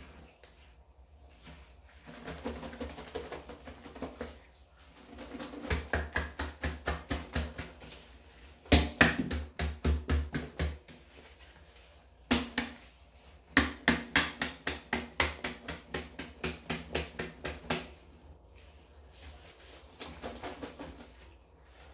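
Scrubbing strokes on the inside of a plastic garbage can, about four a second, in several bursts with short pauses between them.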